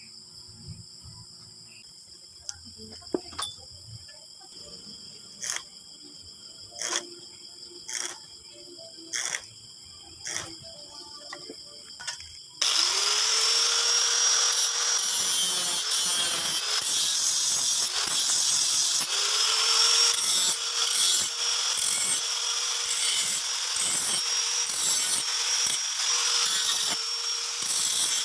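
A few light metal clicks over a steady high chirring, then about twelve seconds in an electric angle grinder switches on and spins up. It runs loudly against the steel silencer body, its motor whine dipping under load and recovering.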